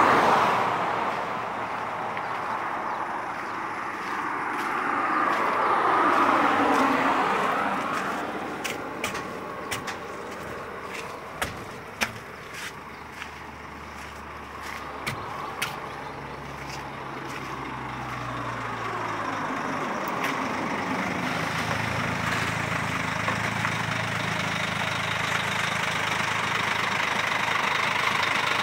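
Highway traffic passing, with one vehicle going by loudly about six seconds in, then a scatter of light clicks. In the last third the Scania R440's six-cylinder diesel is heard idling steadily, growing louder.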